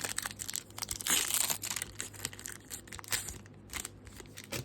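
Foil wrapper of a Pokémon card booster pack crinkling and tearing as it is opened, in an uneven run of crackles that is loudest about a second in.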